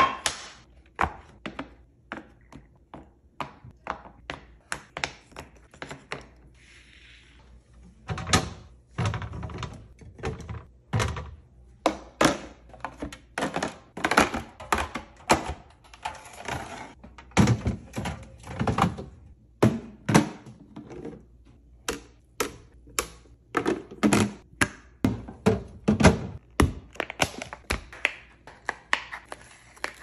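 Close-up ASMR handling sounds: a long run of separate taps, knocks and clunks, several a second at times, as a wooden egg tray and then aluminium soda cans are set down on a stone countertop and slid into a clear plastic can organizer.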